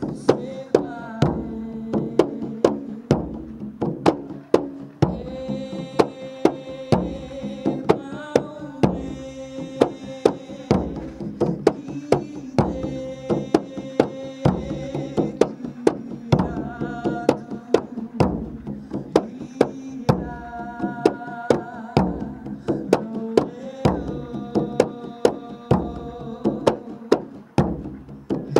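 A man singing through a microphone over a tifa, a Moluccan skin-headed hand drum, beaten by hand in a steady rhythm of about two strokes a second.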